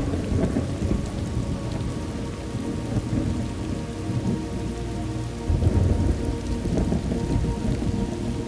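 Thunderstorm: steady rain with low, rolling thunder rumbles, one swelling right at the start and another about five and a half seconds in.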